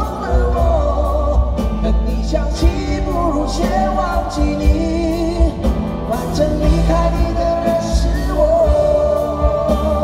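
Live pop-rock ballad played by a band with drums and bass, with a male vocalist holding long, wavering notes between sung lines.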